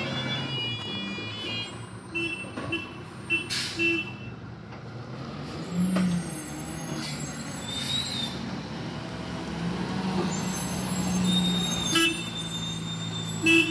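Diesel engine of a loaded heavy truck running steadily at low speed as it moves slowly through a tight turn. A short, sharp hiss of air comes about three and a half seconds in, and there are a few brief sharp sounds near the end.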